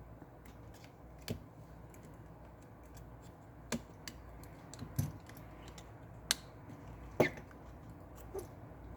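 Scattered sharp clicks and taps of small metal and plastic tools on the opened phone's parts during disassembly, about seven irregular ticks, the loudest two a little after halfway.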